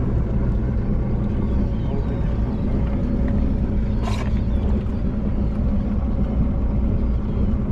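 Boat motor running steadily with an even low hum, with one brief sharp sound about four seconds in.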